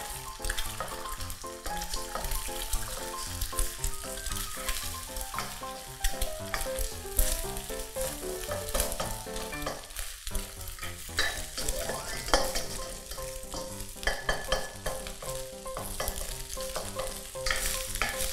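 An egg sizzling in hot oil in a nonstick wok while a wooden spatula stirs and breaks it up, with frequent short scrapes and clicks of the spatula against the pan. The sizzle dips briefly about ten seconds in.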